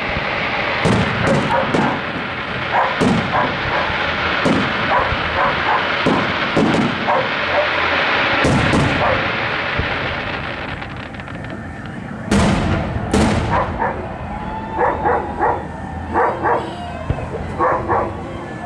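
Fireworks going off: repeated sharp bangs over a continuous crackling, a fast dense crackle around ten seconds in, then two loud bangs about a second apart. In the last few seconds a dog barks several times between fainter bangs.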